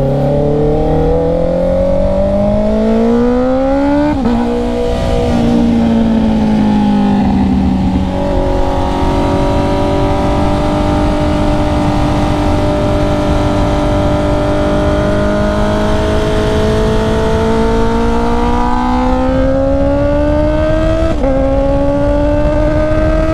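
Honda CB650R's inline-four engine under way. Its revs climb, drop sharply at an upshift about four seconds in, hold nearly steady for a long stretch, then climb again with another upshift about twenty-one seconds in. A steady wind rush runs underneath.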